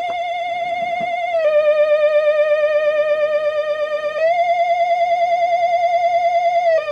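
Spooky theremin-like electronic tone with fast vibrato, held on one note at a time. It glides down to a lower note about a second and a half in, back up about four seconds in, and down again near the end.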